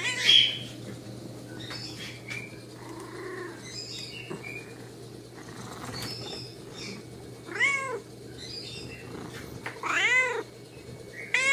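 Domestic cat meowing close to the microphone: short meows that rise and fall in pitch, about three in the second half, the loudest near the end.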